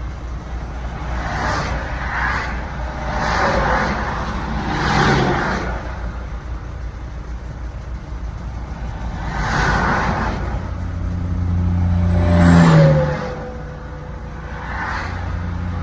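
Road noise heard from a truck cab: a steady low engine hum, with vehicles rushing past every few seconds. The loudest pass, about twelve seconds in, brings a stronger low drone and a falling tone.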